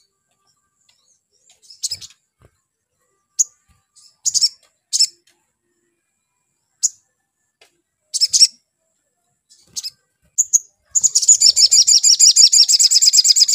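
Male olive-backed sunbird calling with short, sharp, high chirps about a second apart, then breaking into a fast, continuous trill of many notes for the last two and a half seconds. It is a roused bird in full song, what keepers call gacor.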